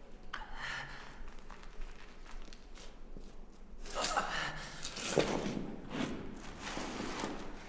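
A badly wounded man breathing raggedly, with heavy gasps about a second apart in the second half.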